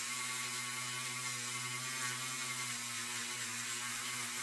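Handheld rotary tool running steadily with a polishing wheel buffing bare zinc diecast metal: a constant motor whine over an even hiss. It is the final once-over polish that leaves the zinc shiny.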